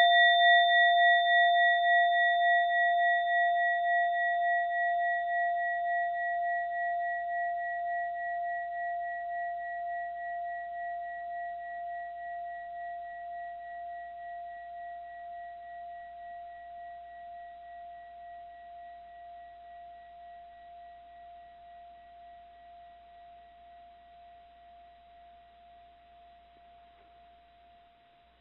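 A mindfulness bell ringing out after a single strike: a clear tone with higher overtones that pulses in a slow, even wobble and fades steadily over nearly thirty seconds until almost gone. The highest overtone dies away first.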